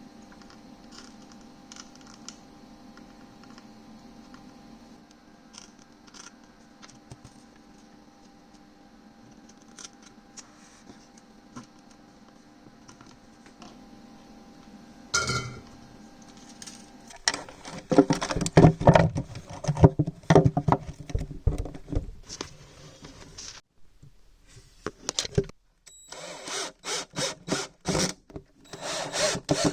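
A steady low hum with faint clicks, then, about halfway through, loud scraping and knocking of tools at work, which stops briefly and starts again near the end.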